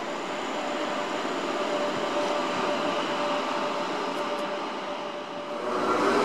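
Sr1 electric locomotive with its passenger train approaching through a station, a steady running hum and rumble. About five and a half seconds in it grows louder, with a higher whine coming in as it draws near.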